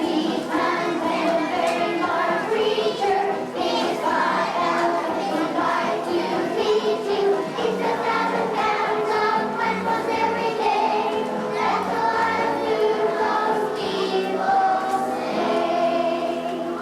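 A group of voices singing together in chorus, a sung number from a stage play; the singing stops near the end.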